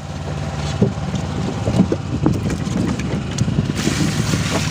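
Fishing boat's engine running steadily, with a few short knocks of handling. Near the end, a brief rush of water poured from a bucket into the ice box.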